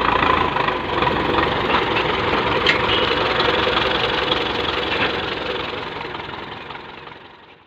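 Belarus tractor's diesel engine idling steadily, with one sharp tick a little under three seconds in; the sound fades out near the end.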